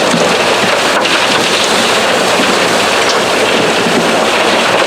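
Diamond recovery wash plant running, a loud, steady rush of water washing gravelly clay through it.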